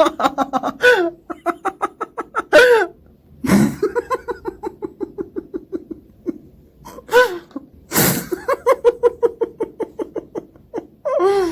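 A man laughing helplessly in fast runs of short pulses, about five or six a second. The runs are broken by high squeaky cries and two sharp, gasping in-breaths.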